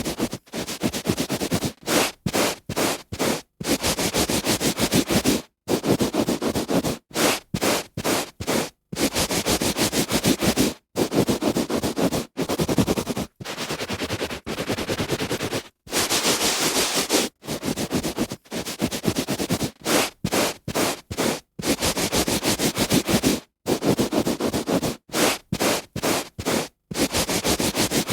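A hand rubbing on carpet: repeated strokes of rubbing noise, some long and some quick, each broken off by a short pause.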